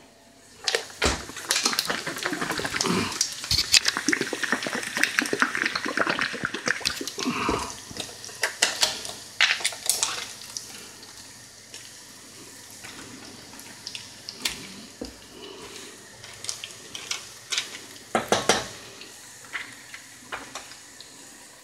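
Kitchen clatter: dishes, a pan and utensils knocking and clinking many times, over the hiss of the sauce sizzling in the pan, which dies down about halfway through.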